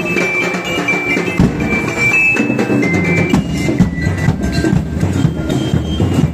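Parade percussion group beating barrel drums and large bass drums with mallets in a dense, steady rhythm, with a few high held notes sounding above the drumming.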